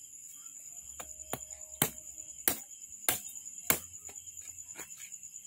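Knife cutting into a duck carcass on a plastic cutting board: a run of sharp, irregular clicks and taps from the blade against bone and board, a few of them louder than the rest.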